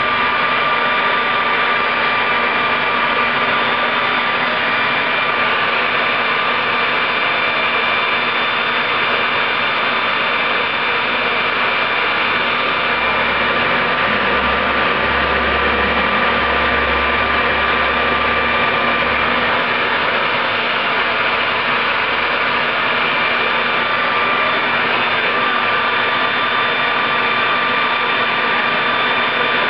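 Homemade turbojet built around a Caterpillar turbocharger, running steadily: a loud, even rush of air with a steady high whine from the spinning compressor.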